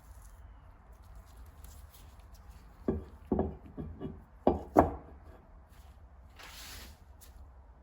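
A quick run of about six light knocks and taps over two seconds, the last two the loudest, like a tool being handled and set down on a workbench, then a brief soft rub near the end.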